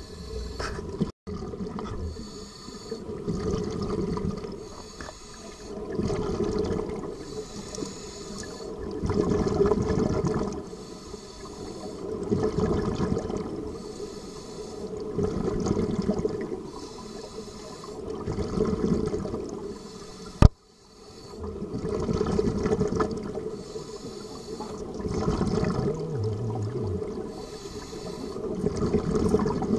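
Scuba diver breathing through a regulator underwater, heard through the camera housing: a hissing inhale and a rush of exhaled bubbles, repeating about every three seconds. A single sharp click about two-thirds of the way through.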